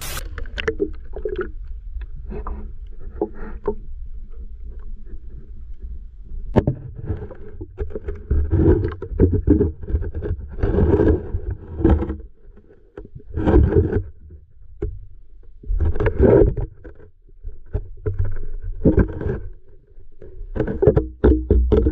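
Water moving against a submerged camera's housing, heard muffled underwater: a constant low rumble with irregular knocks and louder swells every couple of seconds.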